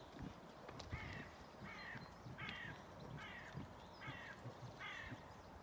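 A crow cawing six times in an even series, about one caw a second, with soft low thumps underneath.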